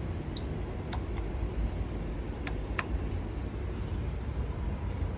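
Steady hum of the flight simulator's cockpit ventilation and equipment fans, with about five sharp clicks in the first three seconds as the IRS mode selector knobs on the overhead panel are turned to NAV, starting inertial reference alignment.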